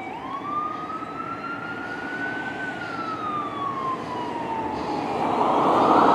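Ambulance siren on a slow wail, its pitch rising for about two and a half seconds, falling for about two and a half, then rising again. It grows louder near the end as the ambulance approaches, with road noise swelling under it.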